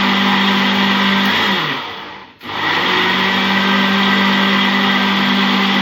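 Electric mixer motor running at speed, beating eggs, sugar and milk into cake batter. About two seconds in it winds down, falling in pitch until it nearly stops, then speeds back up and runs steadily again.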